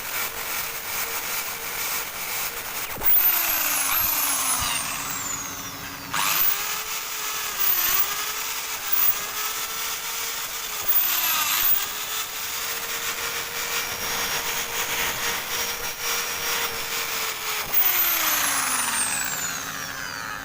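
Electric drill spinning a wire-brush attachment against metal, scouring off dirt and rust. The motor's whine dips repeatedly as the brush is pressed in, then winds down near the end.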